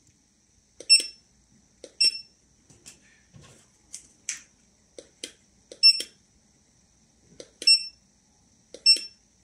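Handheld barcode scanner beeping on successful reads: five short high beeps at uneven intervals, each just after a click, with a few more clicks in between.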